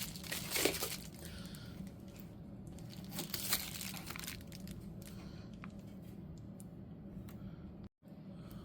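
Faint crinkling and rustling of a shipping package being handled, with scattered small clicks, over a steady low hum.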